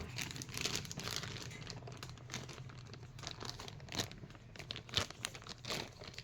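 Paper packaging crinkling and rustling as a shipping box is unpacked by hand, irregular crackles with a few sharper ones about four and five seconds in.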